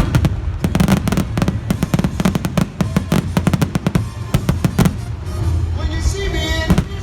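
Fireworks bursting in rapid succession, several sharp bangs a second, over a musical soundtrack with a steady low bass played for the synchronised show. Near the end, pitched tones in the music come forward above the bangs.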